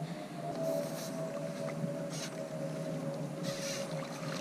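Light splashing and dripping of water as a bream is drawn into a landing net and lifted from the river, in three brief soft bursts over a faint steady hum.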